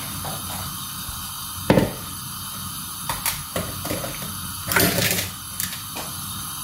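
Steady hiss of a gas hob burner on full flame heating a stainless steel pot of sugar water, broken by a string of short knocks and clicks, the loudest about two seconds in and another cluster near five seconds.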